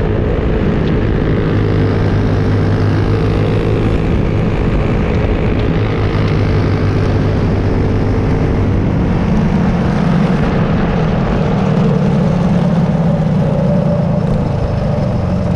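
Clone single-cylinder four-stroke kart engine running hard at racing speed, heard from on board the kart; its pitch steps up about nine seconds in as the kart accelerates out of a turn.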